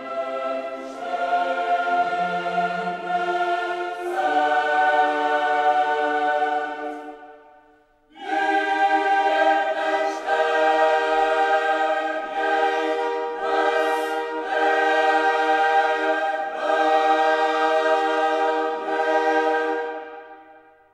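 Background music of a choir singing slow, held chords. It fades out about seven seconds in, comes back a second later, and fades out again near the end.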